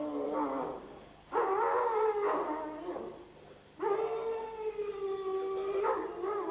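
A dog giving three long, drawn-out howling whines in a row, each held steady at one high pitch; the last and longest lasts about two and a half seconds.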